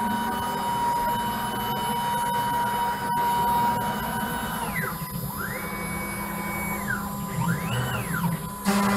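CNC router running its cutting program: the spindle whines steadily while the stepper-driven axes move the head, their whine gliding down and up in pitch several times in the second half. Near the end a sudden, louder, rougher noise sets in.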